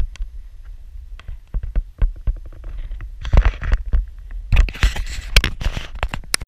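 Wind buffeting the microphone with a low rumble, mixed with many scattered clicks and knocks and two longer bursts of rustling hiss just after the middle.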